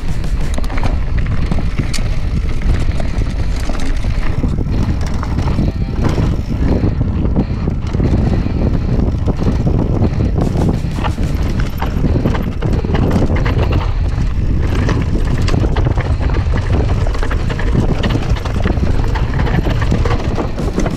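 Cross-country mountain bike rattling and clattering over a rocky dirt trail: rapid, uneven knocks and clicks from the tyres, chain and frame, over a steady low rumble of wind on the camera microphone.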